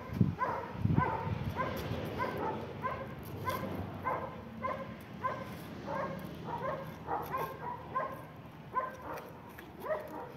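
Beagle puppy whimpering in a long run of short high whines, about three a second; the dog is frightened and refusing to walk on its lead.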